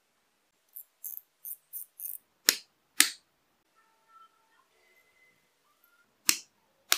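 Sharp snaps of flush-cut pliers trimming thin wooden dowel pins: two loud snaps near the middle and two near the end, after a run of light ticks.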